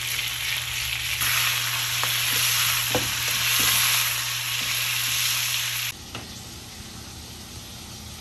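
Tomahawk steak searing in a hot pan: a steady frying sizzle with a few small pops and spits. It cuts off abruptly about six seconds in, leaving a much quieter steady background.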